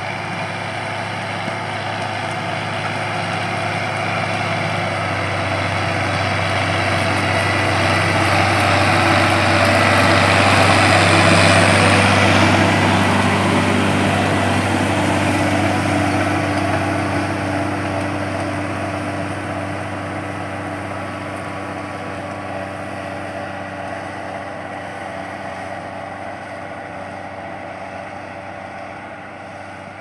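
John Deere 6620 tractor's six-cylinder diesel engine running steadily under load while pulling a three-furrow plough through the soil. It grows louder as the tractor comes closer, is loudest a little before the middle, then fades as it moves away.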